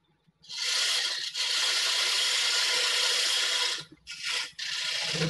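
Woodturning tool cutting into a wooden blank spinning on a lathe: one long cut of about three seconds, a brief break, then two short cuts near the end.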